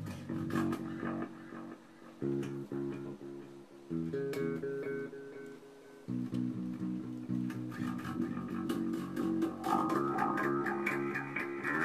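Electric bass, an ESP LTD B-55 FM five-string, played through a Danelectro Dan-Echo delay and other effects pedals. It plucks quick runs of repeated notes and grows busier and louder, with higher notes, in the last few seconds.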